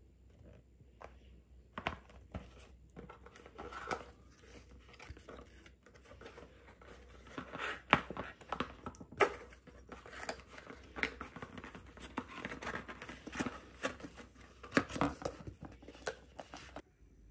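Paperboard gift box being opened by hand: irregular rustling, scraping and sharp taps as the flaps are pulled open and the bottle inside is handled. The sounds stop abruptly near the end.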